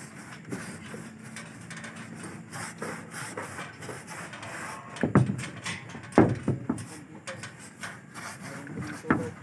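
Paintbrush scrubbing paint onto a rusty corrugated metal roof sheet, a steady scratchy rubbing, with a few louder knocks about five, six and nine seconds in.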